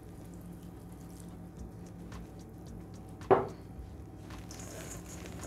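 Faint trickling and dripping as water is poured from a faceted glass over cubes of black bread in a bowl, with one sharp knock about three seconds in.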